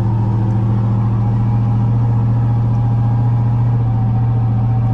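Scania V8 diesel engine of a loaded log truck pulling steadily in third gear under light, constant throttle at crawling speed, its drone holding an even pitch.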